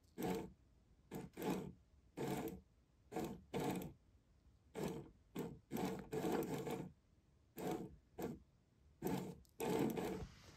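Cheese-wedge automatic cat toy's motor running in short stop-start bursts as it drives the toy mouse in and out of the holes, over a dozen bursts at roughly one a second, irregularly spaced.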